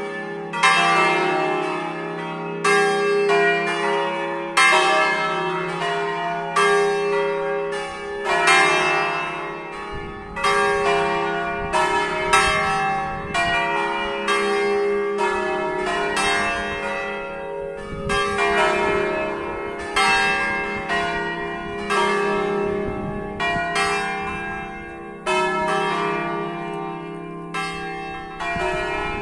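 The five swinging church bells of Sant'Agata, a peal tuned in E-flat (E♭, F, G, A♭, B♭) cast by Giorgio Pruneri of Grosio and the Ottolina foundry of Seregno, ringing together. Their clappers strike about once a second or more, and each new strike overlaps the ringing of the last.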